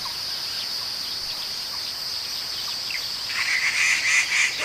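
A steady, high-pitched insect drone. About three and a half seconds in, a bird joins with a run of short repeated notes, about four a second.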